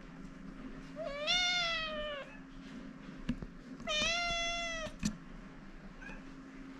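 A cat meowing twice, two long meows of about a second each, the first rising then falling, the second held level and dipping at the end: a cat waiting to be fed. A couple of light taps fall between and just after the meows.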